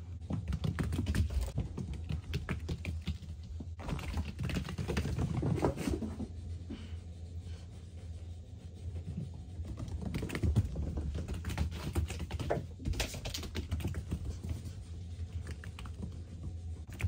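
Rapid, irregular light clicking and tapping in busy flurries with short lulls between them, over a steady low hum.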